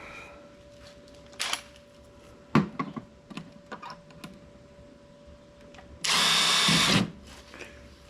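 Power drill running in one steady burst of about a second, driving a wood screw, after a few sharp knocks and clicks from handling parts and tools.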